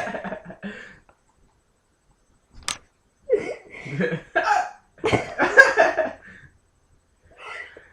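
A person hiccupping: one short, sharp hic just under three seconds in, among several short bursts of voice and breath.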